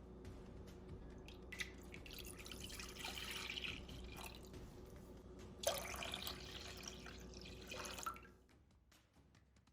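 Liquid being poured, heard as two pours: one from about two seconds in, and a second that starts suddenly midway and stops about eight seconds in. A faint steady hum runs underneath.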